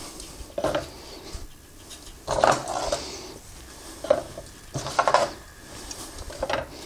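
Long flat steel shashlik skewers clinking and clattering against each other and knocking on a wooden stand as they are handled and laid into its notches, in several separate bursts.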